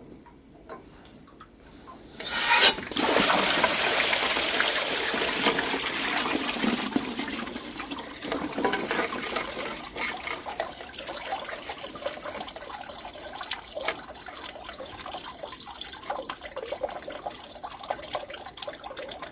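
Liquid gushing in a sudden rush about two seconds in, then tapering off over several seconds to a steady running trickle.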